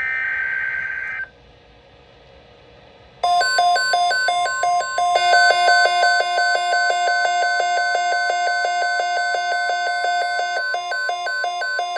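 The tail of an EAS/SAME digital header burst, a shrill warbling data tone, cutting off about a second in. After a short gap, the NOAA Weather Radio 1050 Hz alert tone starts with a steady tone, with a pulsing electronic alarm beep over it, signalling that a severe thunderstorm watch message is about to be read.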